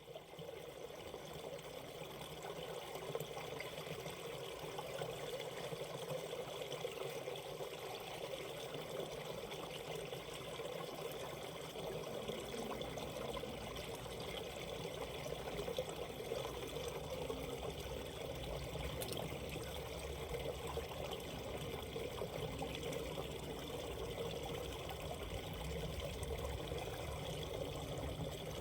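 Mountain valley stream flowing over rocks, a steady babble and trickle of running water.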